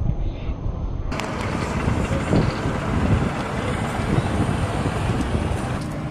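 Wind rumbling on the microphone, then after a sudden cut about a second in, a steady broad rush of outdoor flight-line noise with a low rumble underneath. Near the end a steady low hum comes in.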